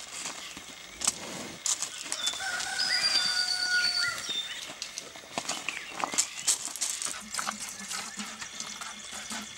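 A rooster crowing once, one long held call from about two seconds in until about four seconds in, among scattered short clicks.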